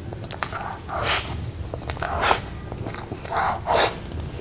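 Close-miked eating sounds: a mouthful of soft, cream-frosted red velvet cake taken off a spoon and chewed with the mouth full, with a few wet clicks at first and several short noisy bursts, the loudest about two seconds in and near the end.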